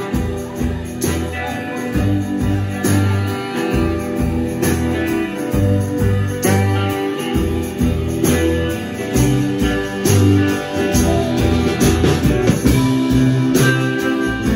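Live band playing an instrumental break with saxophone, electric and acoustic guitars, and drums over a low bass line, with a steady beat and no singing.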